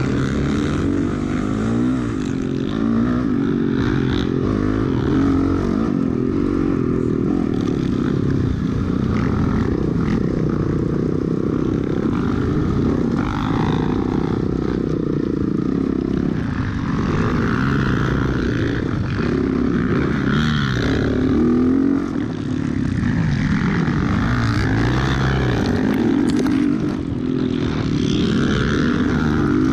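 Motocross dirt bike engine under race throttle, its pitch rising and falling as the rider works the throttle through the track, with a brief dip about two-thirds of the way through.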